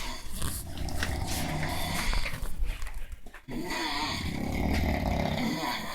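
Heavy sleeping men snoring loudly: two long snores of about three seconds each, with a short break between them.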